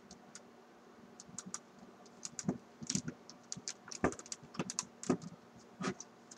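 Irregular light clicks and taps from handling a length of Kanthal wire in a drill chuck, busiest and loudest in the second half.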